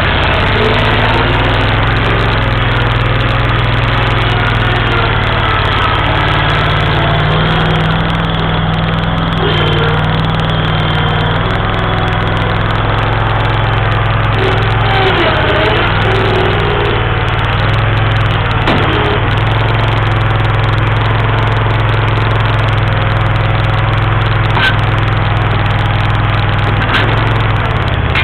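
Terramite T7 mini backhoe's engine running steadily, its note shifting slightly now and then.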